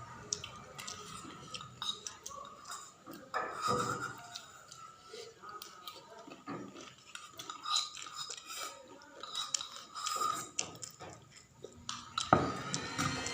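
Eating from a plate: a spoon clinking and scraping against the dish in scattered small clicks, a light clatter of tableware.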